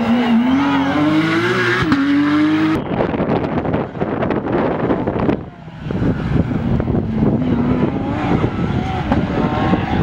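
Porsche 911 rally car's flat-six engine accelerating hard, its note climbing steadily for about the first three seconds. Then the sound changes abruptly to a rougher, noisier engine sound as the car runs close past.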